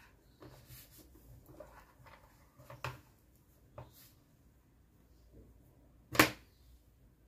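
Hands handling a crocheted plush toy and pushing plastic safety eyes into its body: light rustling and a few small clicks, with one sharp, louder click about six seconds in.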